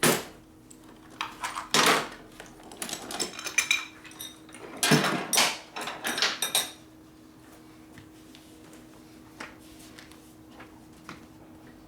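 Metal tools and parts clattering and scraping as they are handled, with several loud clanks in the first seven seconds, then only a few light clicks over a faint steady hum.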